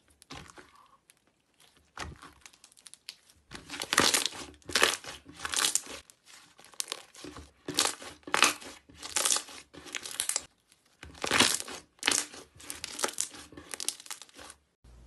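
Slime being squeezed and kneaded by hand, giving irregular bursts of crackling and popping, in several clusters with short pauses between them.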